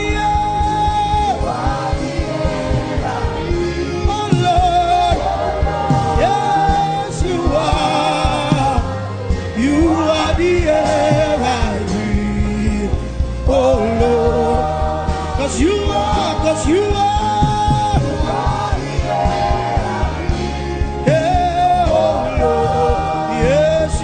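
Gospel worship song: singing with held, gliding notes over a steady instrumental accompaniment.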